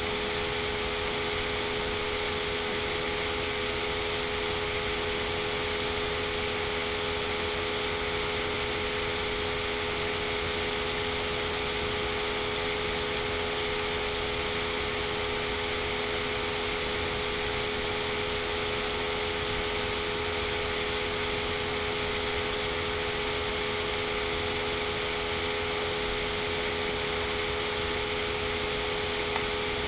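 Steady background hum and hiss with a few held tones, unchanging throughout; one faint click near the end.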